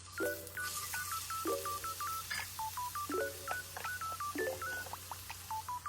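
Playful electronic background music: quick strings of short beeping notes over a lower chord that sounds again about every second and a half.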